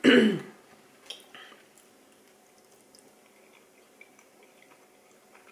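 A short loud sound right at the start, then a person quietly chewing a mouthful of soft oatmeal pancake, with a few faint clicks.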